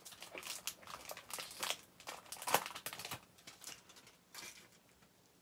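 Foil wrapper of a baseball card pack crinkling as it is torn open and pulled off the cards, a dense run of crackles for about three seconds. A few softer rustles follow as the cards are handled.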